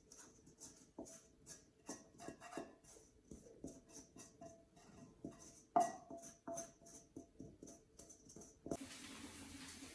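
Light clicks and taps of hands and kitchenware while dough is being mixed, with one sharper knock that rings briefly about six seconds in. A steady hiss starts suddenly near the end.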